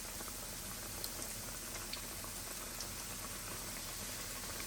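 Battered chicken pieces frying in hot oil in a cast-iron skillet: a steady bubbling hiss with small scattered crackles and pops.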